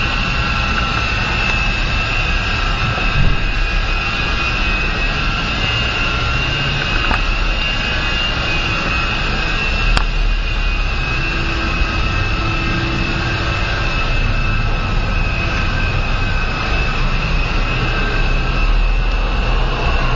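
A Syma 3-channel RC helicopter flying: its small electric motors whine with a steady high tone while its coaxial rotors whir, the pitch holding level throughout.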